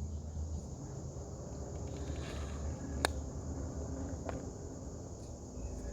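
Insects trilling steadily in a high, even tone over a low hum, with two sharp clicks about three and four seconds in.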